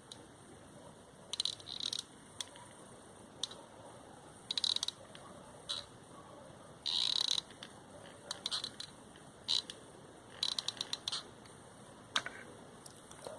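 Hot glue gun trigger worked in short squeezes, giving irregular runs of ratcheting clicks as the glue stick is pushed through.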